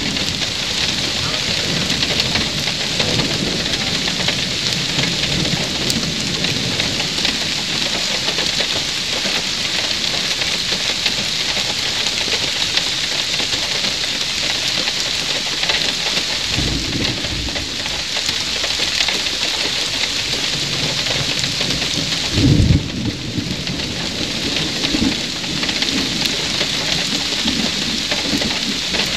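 Steady rain falling, an even hiss throughout, with two short low rumbles, the louder one about two-thirds of the way through.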